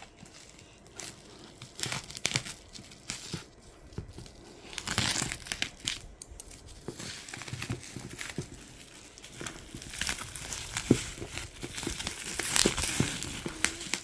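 Packaging being opened by hand: irregular crinkling and tearing, with scattered sharp clicks and knocks of handling, the busiest stretches about five seconds in and near the end.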